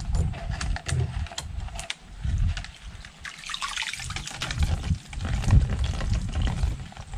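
Water splashing and trickling, with scattered short clicks and knocks and uneven low rumbling. The splashing is strongest about three to five seconds in.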